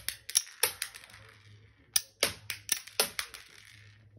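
Dinky Toys Striker toy tank's launcher firing small plastic rockets: a quick run of sharp clicks and light clatters as the launcher snaps and the rockets land and skitter across a wooden floor. The clicks come in two bursts, the second starting about two seconds in.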